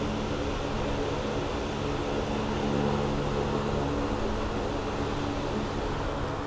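Steady hum of fan-driven machinery, with several held low tones under an even rushing noise.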